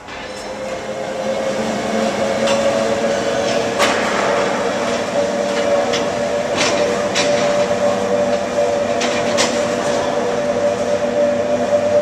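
Workshop machinery running with a steady humming whine, and sharp metallic knocks and hammer blows striking now and then.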